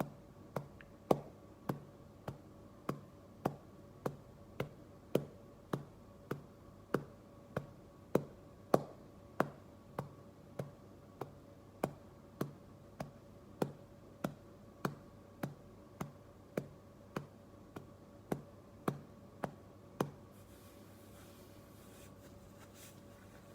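A hand patting a back in a steady rhythm, about one and a half to two pats a second, to bring up a burp. The pats stop about 20 seconds in.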